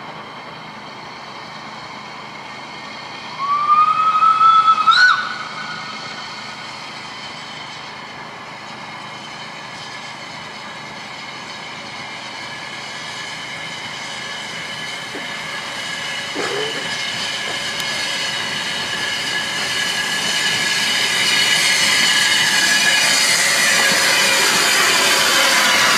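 Peckett 0-4-0ST saddle-tank steam locomotive sounding its whistle once, a loud blast of about a second and a half that rises slightly in pitch, then running in with its train, the hiss of steam and the rumble of wheels on rail growing steadily louder as it draws near.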